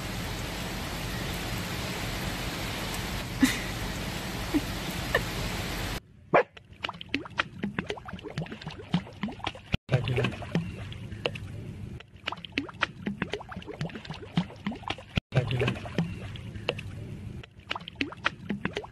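About six seconds of steady rushing noise, then water splashing and sloshing as a small dog is lowered into shallow water. Many short clicks and brief cries run through the splashing.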